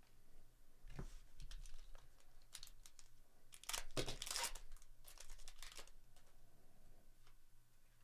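Trading-card pack wrapper torn open and crinkled by hand: several short rips, the loudest about four seconds in.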